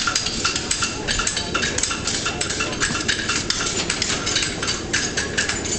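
Farriers' hammers striking hot horseshoes on several anvils at once: a busy, overlapping clatter of metallic clangs at no single rhythm.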